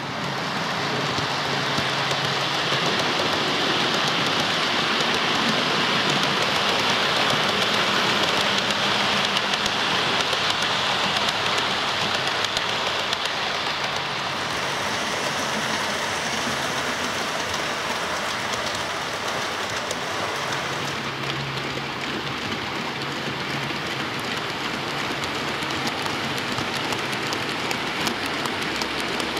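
OO gauge model trains running on the layout track: a steady hissing rush of wheels and motors on the rails. The sound changes character about 14 seconds in and again about 21 seconds in.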